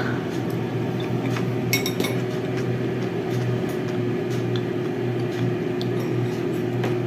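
Dishes clinking as a food container is handled, with a couple of sharp clinks about two seconds in and a few lighter taps after, over a steady low hum.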